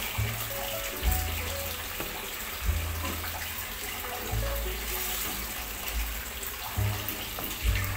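Chicken simmering in a sweet-soy sauce in a frying pan, the liquid bubbling and sizzling steadily as it is stirred with a spatula. Background music plays underneath.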